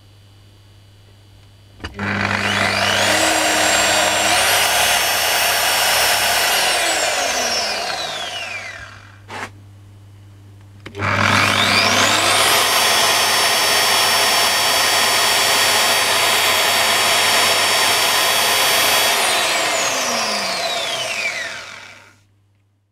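Makita 9237CB electric polisher's motor started twice on test after new carbon brushes and a new switch were fitted. Each time it whines up to speed, runs steadily, then spins down with a falling whine once switched off. There is a short click between the two runs and a low mains hum underneath.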